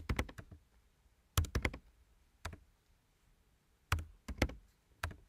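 Typing on a computer keyboard: short runs of key clicks with pauses between, as numbers are entered into a line of code.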